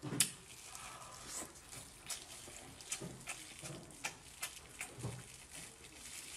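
Chewing and wet mouth smacks while eating spicy sauced octopus, with soft squelches as gloved hands tear the octopus apart. The sound is a string of irregular short smacks and clicks.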